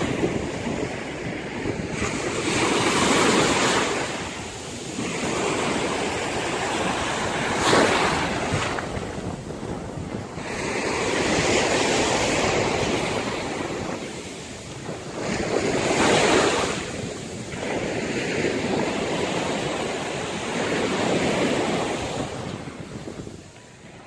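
Ocean surf breaking on a sandy beach, the wash swelling and ebbing every few seconds, with wind buffeting the microphone. The sound fades out near the end.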